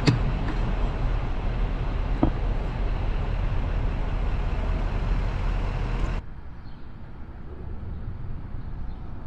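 Steady rumble of road traffic, heaviest in the low end. About six seconds in it cuts abruptly to a quieter, duller hum.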